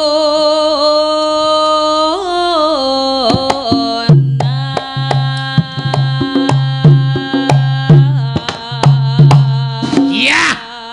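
Javanese sinden (female gamelan singer) singing a long held note with a wavering vibrato. From about four seconds in, low kendang (Javanese hand drum) strokes come in beneath her voice in a steady rhythm while the melody moves on.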